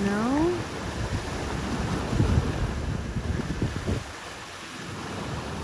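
Wind buffeting the microphone over the rush of ocean surf, easing briefly about four seconds in. A short rising vocal exclamation comes right at the start.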